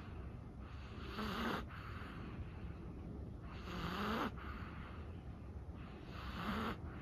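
Chihuahua breathing in its sleep with light snoring: three slow breaths about two and a half seconds apart, each a soft rush of air with a faint rising wheeze at its end.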